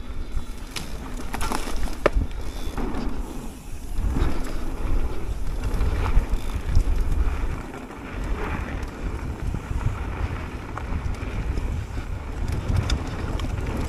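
Mountain bike rolling down a dirt singletrack. Wind buffets the microphone with a low rumble, and the tyres run over dirt and leaf litter, with scattered sharp clicks and rattles from the bike.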